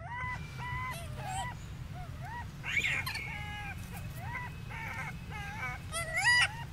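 Infant rhesus macaques cooing: a string of about a dozen short, high calls that rise and fall, roughly two a second. There is a louder, higher-pitched cry about three seconds in and a shrill squeal near the end.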